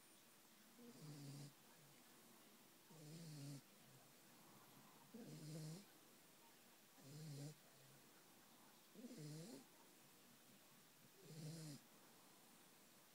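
A sleeping dog snoring: six snores evenly spaced about two seconds apart, each about half a second long, with a low pitched part and a breathy hiss.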